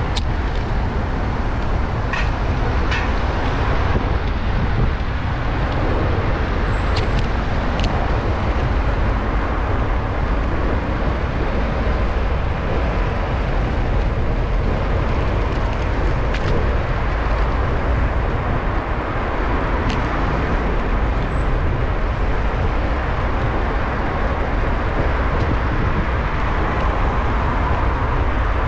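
Street traffic and wind noise heard from a bicycle-mounted action camera while riding, a steady low rumble with a few short ticks.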